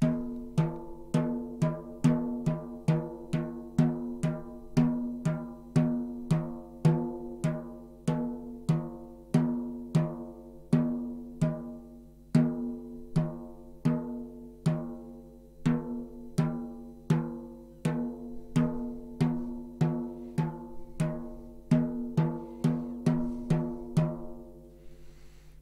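14-inch snare drum's batter head tapped with a soft mallet in front of each tension rod, a steady run of taps a little under two a second. Each tap rings briefly at one clear pitch: the head is being tuned by ear, rod by rod, to an even pitch all round. The taps stop near the end.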